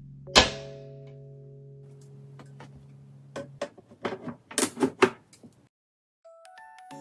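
Background music over hard plastic-and-glass case handling: about half a second in, a loud clack with a short ring as the Lian Li O11 Vision's front glass panel is fitted. Then, from about halfway, a quick run of knocks and clicks as the top cover is put on. The music stops briefly, then a new chiming tune begins near the end.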